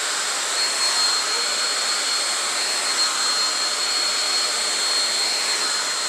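Andis handheld blow dryer running steadily: an even rush of blown air with a thin, high, steady whine from its motor.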